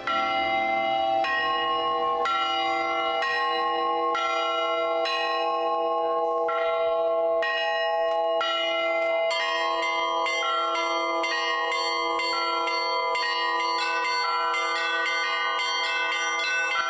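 Church bells of several sizes in a bell tower, rung by hand from ropes tied to their clappers, in the Russian chiming style. Slower strikes come about once a second, then from about halfway through the smaller bells join in a quicker run of several strikes a second over the ringing deeper bells.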